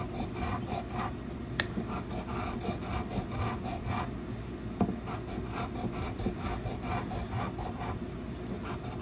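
A coin-like scratching token scraping the latex coating off a lottery scratch-off ticket in quick repeated strokes, with a short pause about four seconds in.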